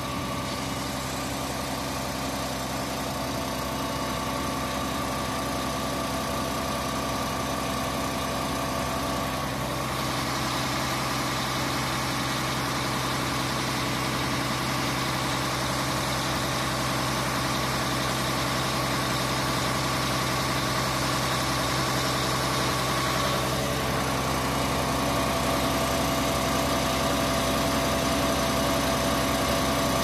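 Mercedes-Benz Actros truck's diesel engine running steadily with the PTO engaged to drive the concrete pump's hydraulics. Its note shifts slightly about ten seconds in and again a little after twenty seconds.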